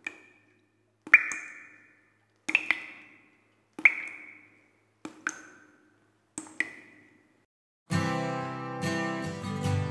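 Trailer sound-effect hits timed to splattering ink: six sharp, ringing double taps, one about every second and a half, each fading quickly. Near the end, guitar music with a low bass comes in.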